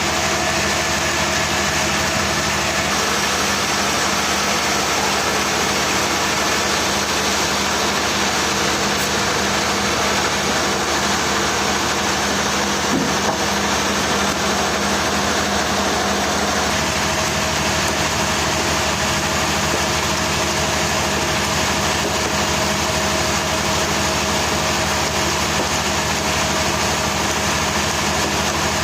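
Sawmill machinery running steadily, a constant mechanical drone with a few steady hum tones and no change in pitch or level.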